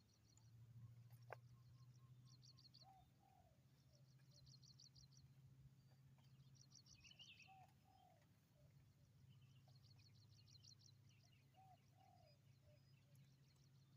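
Spotted dove cooing faintly, three short phrases of two or three notes about every four to five seconds, used as a call to lure wild birds. Between them a small bird chirps in rapid high twittering runs, a single sharp click sounds about a second in, and a low steady hum runs underneath.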